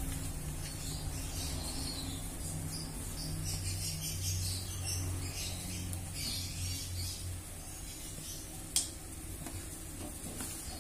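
Hands mixing crumbly flour dough in a plastic tray: intermittent soft rustling and scraping of fingers and a metal spoon through the flour against the plastic, over a steady low hum. One sharp click near the end.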